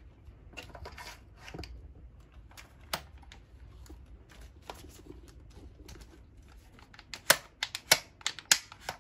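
Handling of a D-Cobra M4 spring airsoft rifle: soft rubs and light knocks, then near the end a quick run of sharp clicks as the collapsible stock is worked along the buffer tube.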